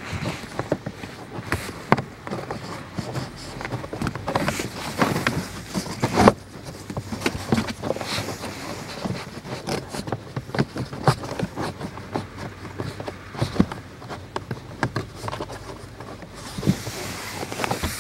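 A pleated cabin air filter being pushed and worked into its plastic housing under the dashboard: irregular scraping and rubbing with many small plastic knocks and clicks.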